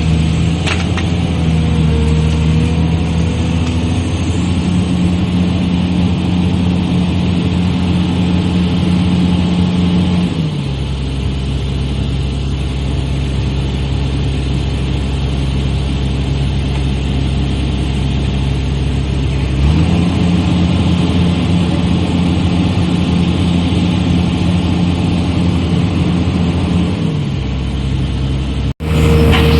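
Hydraulic excavator's diesel engine running under working load, its pitch dropping about a third of the way in, rising again about two-thirds in and dropping once more near the end as the load changes. The sound cuts out briefly just before the end.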